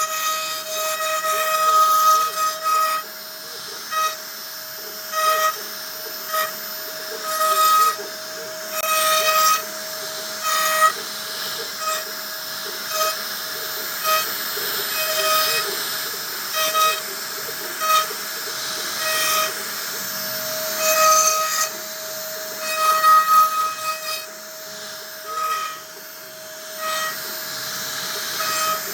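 CNC router spindle running with a steady whine as the bit cuts into wood, with a higher tone and louder surges that come and go every second or two as the cutter bites into the material.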